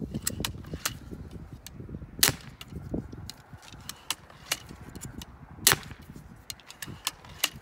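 Cobra pistol crossbow with a homemade six-shot magazine being shot: two sharp snaps of the string releasing, about three and a half seconds apart, with lighter clicks of the crossbow being handled and worked in between.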